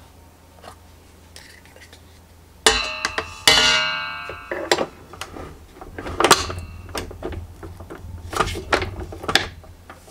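A metal stand-mixer attachment knocking against the stainless steel mixing bowl: two sharp clanks under a second apart, each leaving the bowl ringing, then several lighter clicks and knocks as it is fitted.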